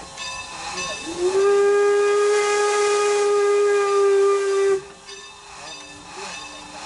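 Steam locomotive whistle, Norfolk & Western 475's, blowing one long blast of about three and a half seconds. It slides up into its pitch about a second in and cuts off near the five-second mark. Under it runs the steady running noise of the moving train, heard from between the coaches.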